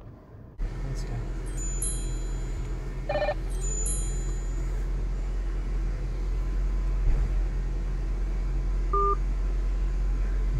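Short electronic beeps and tones from a car's aftermarket Android head unit as a Bluetooth phone call is dialled and ended. They sit over a steady low hum that comes in suddenly about half a second in.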